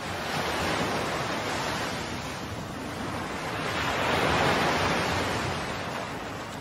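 Ocean surf washing and breaking, swelling to a peak about four seconds in and then easing off.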